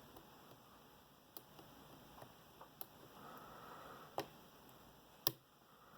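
Faint, scattered clicks of a lock pick working the pins inside a lock, about five in all, the loudest near the end.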